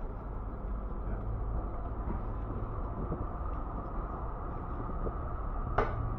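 Steady city street noise with a low traffic rumble, and a single sharp click or knock near the end.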